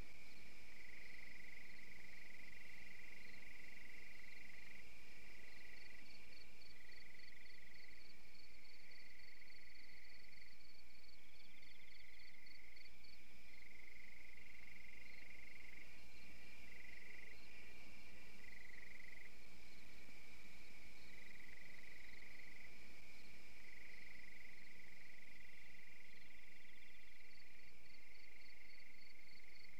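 Steady chorus of calling insects and frogs: a continuous high trill, with a faster pulsing chirp above it that drops out and returns.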